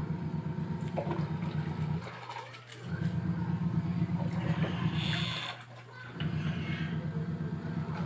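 Fujidenzo JWA-6500 VT fully automatic top-load washing machine running its wash agitation. The motor hums low in stretches of about two to three seconds, each broken by a short pause as the pulsator stops and reverses, with water swishing in the drum.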